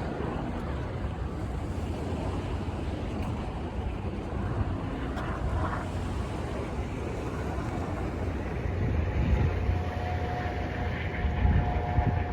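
Steady low rumble of a moving vehicle or vessel, with wind noise on the microphone.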